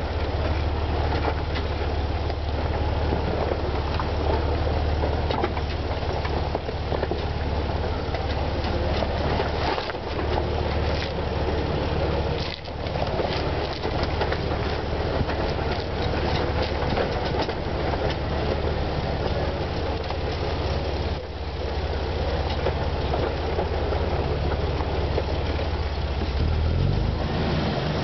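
Jeep engine running steadily at crawling speed, heard close up from low on the body beside the front wheel, with tyres working over dirt and mud and many small rattles and clicks from the vehicle.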